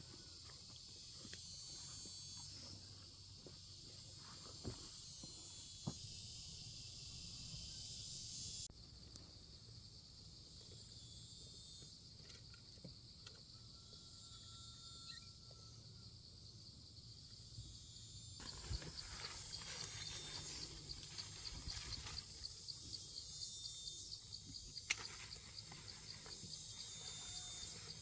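Insects chirring steadily in a high, hissing chorus that changes character abruptly twice, with a fast, even pulsing trill in the last third. A few faint sharp knocks.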